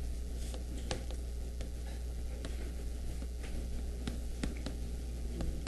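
A steady low hum with irregular light clicks and taps scattered over it, about two a second.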